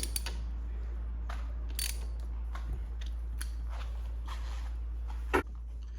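Scattered light clicks and small metallic knocks of hand tools and bolts being worked on motorcycle handguard mounts, with one sharper click near the end.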